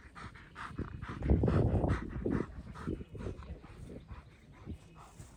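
German Shepherd panting in quick, even puffs while heeling, with a faint whine now and then. About a second in, a loud low buffeting lasts under a second.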